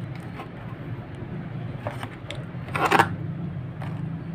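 Cardboard speaker box being handled and turned over: a few light taps and scuffs, with one louder brushing scrape about three seconds in, over a steady low hum.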